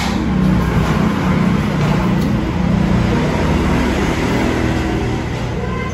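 Steady engine noise with a low hum, like a motor vehicle running close by, easing off near the end.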